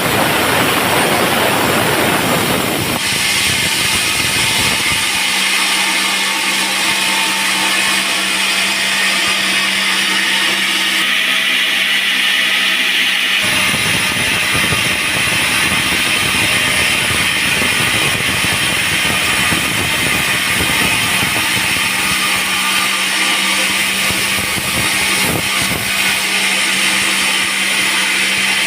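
Band sawmill running, a loud steady machine noise with a constant hum; the sound changes abruptly about 3 seconds in and again about 13 seconds in.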